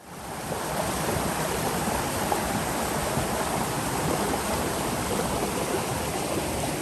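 Water rushing steadily down a rocky mountain stream, fading in over the first half second.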